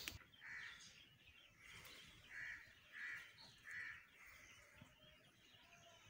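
Faint bird calls: about five short calls in quick succession over a quiet background, ending about four seconds in.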